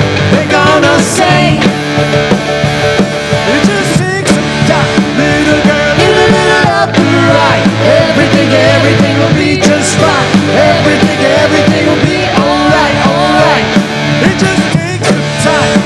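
A live country-rock band playing: drum kit, electric bass and guitar under a sung lead vocal, loud and continuous.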